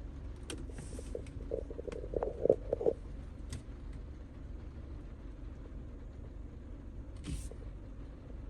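Steady low rumble of a car, a 2020 Mercedes-Benz GLE 350, heard from inside the cabin. A few clicks and short knocks come in the first three seconds, and a brief hiss comes near the end.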